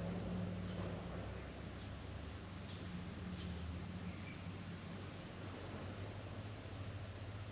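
Small wild birds giving short, very high, thin chirps that slide downward, repeated several times, mostly in the first few seconds. A steady low hum runs underneath.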